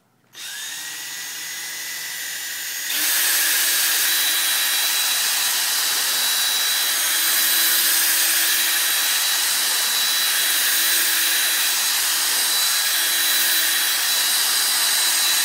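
Power drill spinning a 3M sponge polishing pad while buffing a screen, running at low speed from about half a second in, then stepping up to a faster, louder speed about three seconds in and running steadily.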